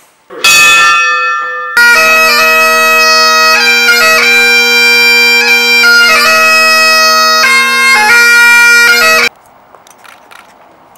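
Bagpipes playing a slow tune: the pipes strike in with a sudden note, then the melody runs over steady drones. The music stops abruptly about nine seconds in.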